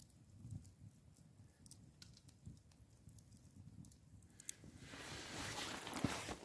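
Wood campfire burning with faint, sparse crackles over a low rumble. About four and a half seconds in, a louder rustling hiss with more crackles comes up and continues to the end.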